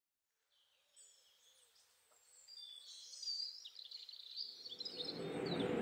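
Birds chirping and twittering, fading in from silence, joined about two-thirds of the way in by a steady outdoor hiss that keeps growing louder.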